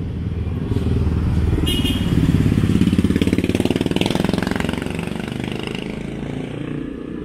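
A motorcycle engine passing by on the street, growing louder to about three seconds in and then fading away.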